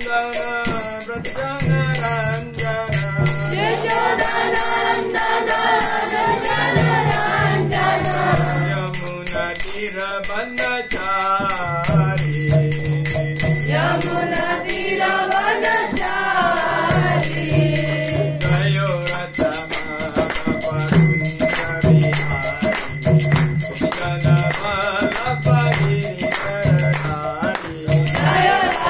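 A man singing a devotional chant, keeping time with karatalas (small brass hand cymbals) struck in a steady rhythm that rings high above the voice.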